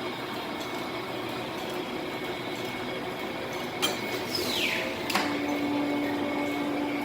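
Large 40-inch by 10-foot planer running with a steady mechanical noise. About four seconds in there is a sharp click and a short falling squeal, then a knock a second later, after which a steady low hum sets in.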